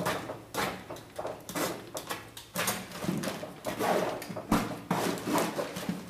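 A run of irregular scraping and rustling strokes, several a second, from paintings being worked over and destroyed by hand.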